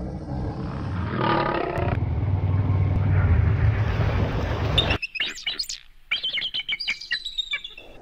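Deep roaring and growling for about five seconds: a lion, then the low growl of a crocodile. After an abrupt cut, a bird gives a rapid series of high, sweeping chirps.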